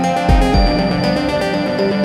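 Background music: an electronic track of steady sustained tones, with a deep bass note coming in about a third of a second in.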